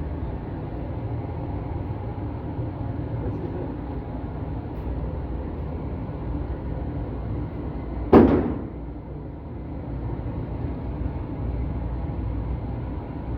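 A single gunshot about 8 seconds in, with a short echoing tail, over a steady low rumble of outdoor background noise.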